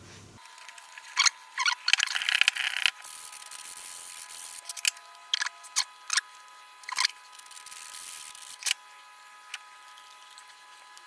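Wooden pieces handled on a workbench: scattered sharp knocks and clicks of wood, with a few short stretches of rubbing, the longest about two seconds in.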